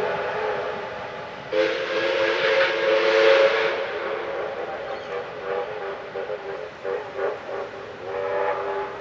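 Steam locomotive whistles of the double-header 3237 and 5917 sounding several notes at once. A louder blast with a rush of steam comes about a second and a half in, followed by shorter broken toots near the end.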